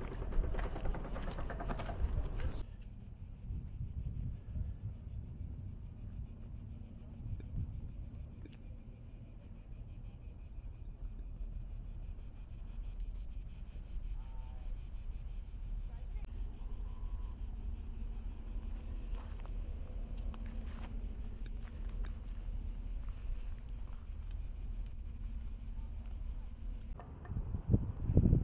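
A chorus of cicadas buzzing steadily in a high, fast-pulsing drone, the summer insect sound of a Mediterranean pine forest. The buzzing stops shortly before the end, where a low rumble grows louder.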